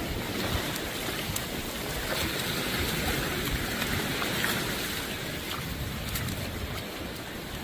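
Steady wind rushing over the microphone with surf washing on the beach, a few faint ticks in it.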